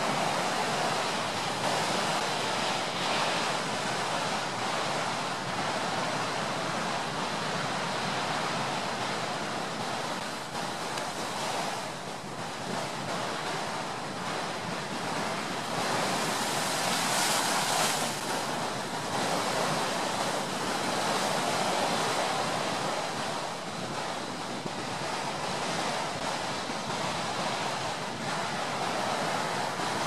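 Ocean surf: waves washing in and out as a continuous rush that swells and ebbs slowly, with the biggest surge about halfway through.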